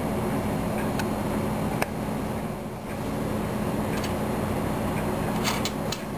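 A steady background hum with a low drone, and a few light clicks scattered through, closer together near the end, as small airsoft pistol parts are picked up and set down on a wooden tabletop.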